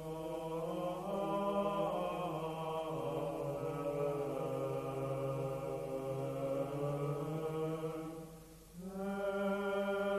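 Background music of chant sung by low voices, long held notes that shift slowly in pitch. It drops away briefly about eight and a half seconds in, then starts again.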